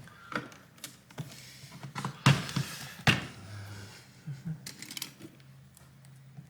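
Scattered clicks and knocks with short bursts of rustling noise, the loudest a little over two seconds in, over a faint steady low hum.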